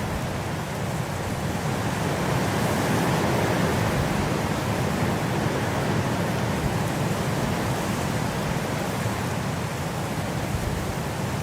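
Steady gusting winter wind, a full, even rush that swells a little a few seconds in and eases again.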